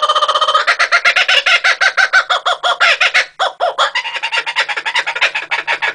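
Laughing kookaburra calling: a fast, loud run of short repeated notes, about eight a second, breaking off briefly about three and a half seconds in and carrying on a little quieter.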